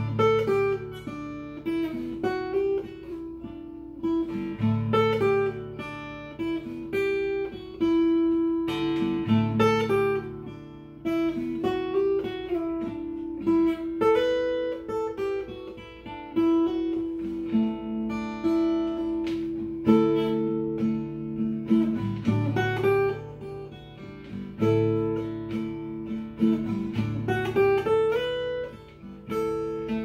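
Solo acoustic guitar played fingerstyle: plucked melody notes over ringing bass notes.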